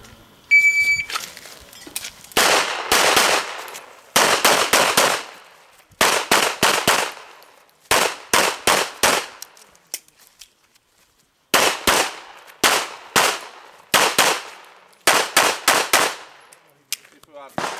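A shot timer gives a short electronic start beep. Then a semi-automatic handgun is fired in quick strings of three to five shots, each shot sharp with a short echo, with a pause of about two seconds partway through.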